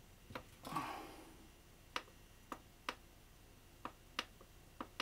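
About seven short, sharp plastic clicks at uneven intervals from the control buttons of a Domotec toaster being pressed over and over, with a brief rustle a little under a second in. The buttons click but do not switch the toaster off: its buttons and shut-off timer are faulty.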